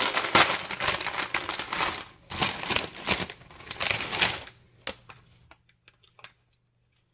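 Plastic bag of chips crinkling as it is pulled open and rummaged through, in several loud bursts, then a few short sharp crackles about five to six seconds in, with a faint low hum underneath.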